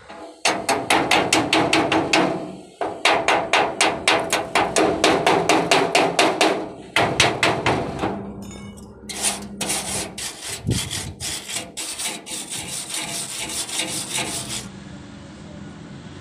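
Chipping hammer rapidly striking a fresh stick weld on a steel hinge to knock off the slag, about six sharp metal blows a second in three runs. Then lighter, faster scraping strokes over the weld for about five seconds, which stop near the end.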